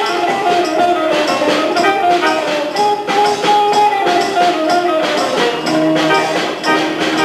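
Live band music: a melody line carried over a steady percussion beat.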